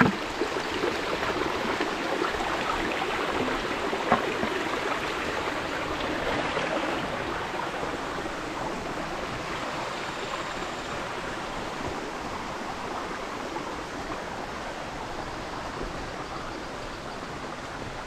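Steady rush of flowing water in a forest stream, slowly growing fainter.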